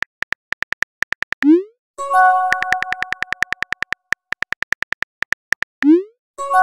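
Chat-app sound effects: runs of quick, even typing clicks, a short rising pop about a second and a half in and again near the end as message bubbles appear, and a synthesizer chord struck about two seconds in that fades out under further clicks.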